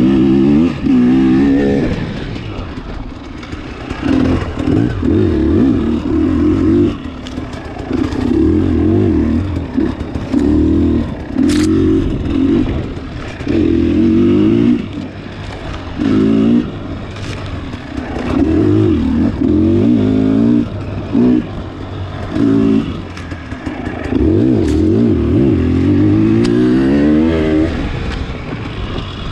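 Dirt bike engine on the move, revved hard and then backed off again and again every second or two, its pitch rising with each burst of throttle as it accelerates between turns on sandy trail. A few sharp clicks come through over the engine.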